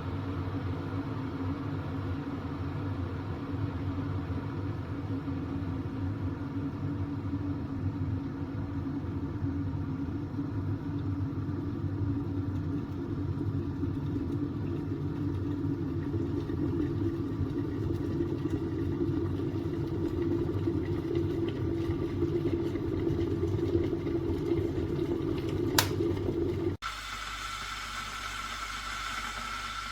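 Electric glass kettle heating water: a steady low rumble that grows slightly louder as it nears the boil. Near the end there is a sharp click, and the sound then cuts off abruptly into a quieter hiss.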